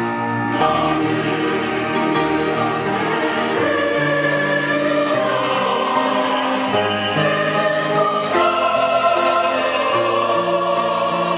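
Mixed church choir of women's and men's voices singing a sacred anthem in Korean, holding sustained chords that move every second or two.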